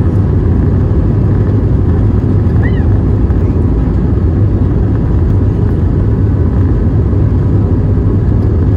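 Airbus A320neo heard from inside the passenger cabin while rolling along the runway: a loud, steady, deep rumble of engines and airframe. A brief high chirp sounds about a third of the way in.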